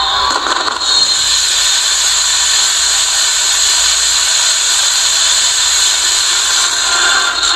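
Many morenada matracas (hand-spun ratchet rattles) whirled together by the dancers, a steady continuous clatter.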